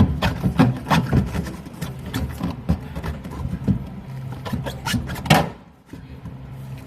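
Irregular clicks, taps and rubbing of parts and tools being handled, with a louder knock about five seconds in, over a low steady hum.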